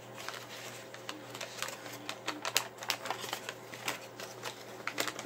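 Crinkly plastic LEGO minifigure blind bag being handled and pulled apart by hand: a rapid, irregular run of crackles and rustles.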